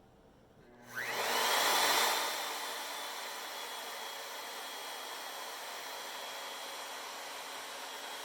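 CNC router spindle starting up: about a second in, a whine rises in pitch and settles into a steady high whine over a loud rushing hiss, which eases slightly and then runs on steadily.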